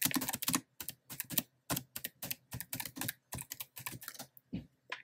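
Typing on a computer keyboard: a quick, irregular run of keystrokes that stops just before the end.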